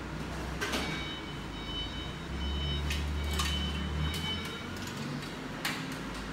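Indoor store background: a low steady hum that swells for a couple of seconds mid-way, with a few sharp clicks scattered through and a faint high whine for a few seconds near the start and middle.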